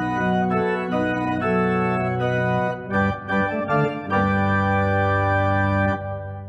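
Organ music playing slow sustained chords, with a few quicker notes midway, ending on a long held chord that fades out near the end.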